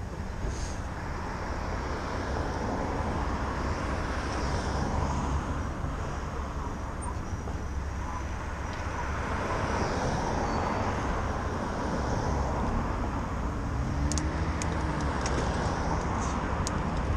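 City road traffic heard from a moving bicycle: cars passing, with a steady low rumble throughout. A vehicle engine's pitch rises and falls about two thirds of the way through.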